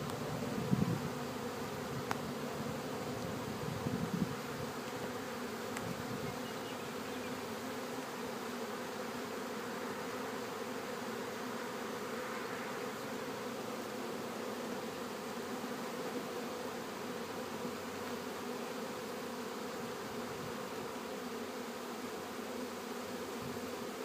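Mass of honeybees buzzing steadily over an open hive box as they are being installed, a continuous even hum. A few brief knocks of handling in the first few seconds.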